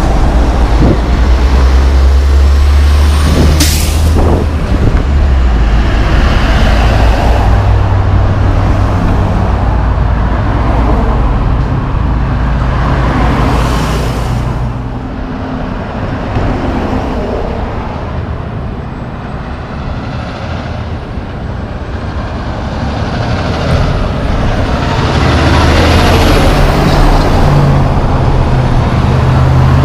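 Heavy diesel tractor-trailer with a flatdeck load of lumber passing close by: deep engine drone and tyre noise, with a short sharp sound about four seconds in. The traffic noise falls away midway, then rises again as another truck and a car pass near the end.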